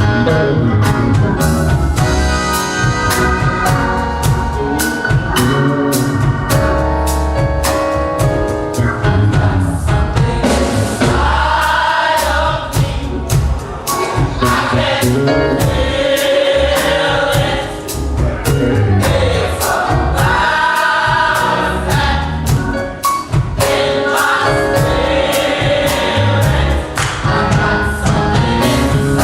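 Gospel choir singing over a band accompaniment with a steady beat.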